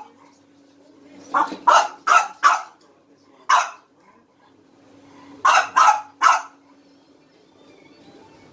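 French bulldog barking in frustration at a food grinder: four quick barks about a second and a half in, a fifth a second later, then three more about five and a half seconds in.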